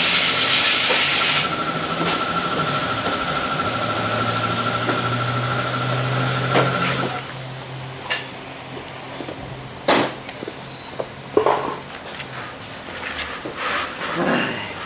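Motorcycle workshop tool work: a loud hiss at the start lasting about a second and a half, a steady hum through the middle, then a few sharp clicks and knocks.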